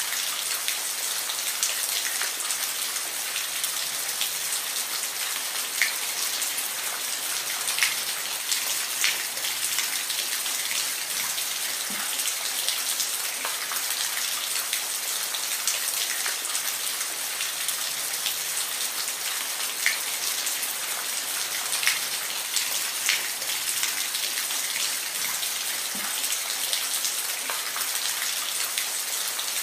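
Steady rain falling, an even hiss with individual drops ticking sharply on a surface here and there.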